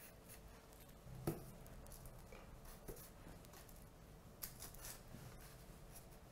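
Faint soft taps and paper rustling as peeled mandarin halves are set down on baking paper in a baking tray. The sharpest tap comes about a second in, with a few more light ones later.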